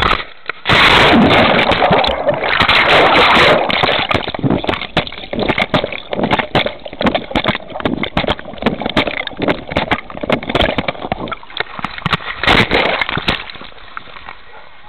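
A dog hitting the water of a dock-diving pool, heard from a camera strapped to the dog: a big splash about a second in, then churning water. After that comes irregular sloshing and splashing as the dog swims, with a last loud burst of splashing shortly before the end, when the dog leaves the water.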